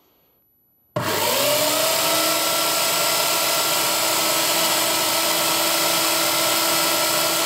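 Electric motorcycle roller starter switched on with its foot switch. It spins up within a fraction of a second and then runs steadily at full speed, its rollers turning the KTM LC4's rear tyre. The clutch is still pulled, so the single-cylinder engine is not being turned over.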